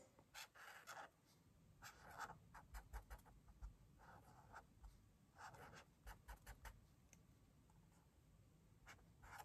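Faint sound of a felt-tip marker drawn across paper in many short strokes, pausing now and then.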